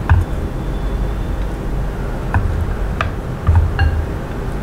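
Chopsticks tapping and clicking against a glazed ceramic dish a few times while grilled pork slices are laid on the salad. One tap near the end leaves a short ring. A steady low rumble runs underneath.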